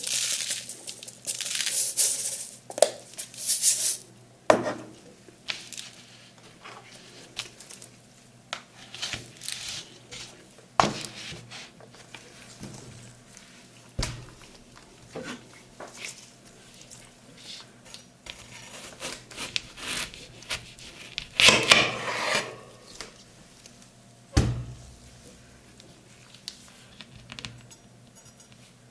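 Metal spatulas scraping across a frozen ice cream plate and knocking against it while rolled ice cream is worked, with several sharp taps between passages of scraping.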